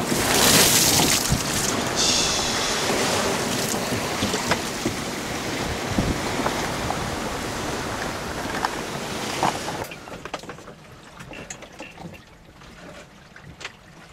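Strong wind and rough seas rushing past a small sailing yacht's deck, with wind buffeting the microphone and a loud surge of water at the start. About ten seconds in, it cuts to a much quieter cabin with faint scattered clicks.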